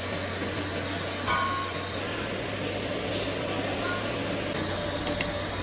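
Orbital TIG welder at work: a steady hiss with a low electrical hum underneath.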